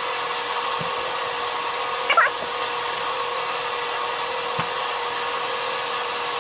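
A small motor running steadily, giving a constant hum and whine. A brief high squeak cuts in about two seconds in.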